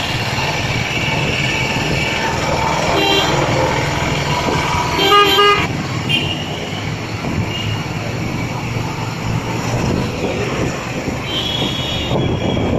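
Engine and road noise of a ride through busy city traffic, with vehicle horns tooting several times: a short one about three seconds in, the loudest about five seconds in, and a higher-pitched one near the end.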